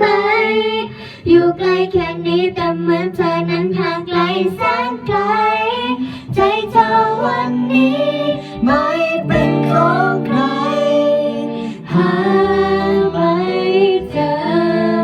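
Young girls' voices singing a Thai pop song over a backing track, with some long held notes in the middle.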